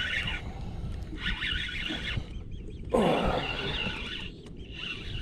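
Spinning reel being cranked in short bursts while fighting a hooked bass, its gears whirring. About three seconds in, a louder sound slides downward in pitch.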